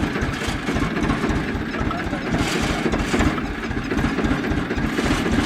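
Tractor engine running steadily at idle, a continuous low throb.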